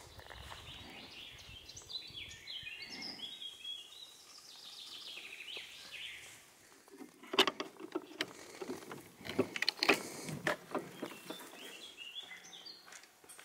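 Forest birds chirping. About halfway in, a run of sharp clicks and knocks as the iron hook latch is lifted and the wooden hut door is opened.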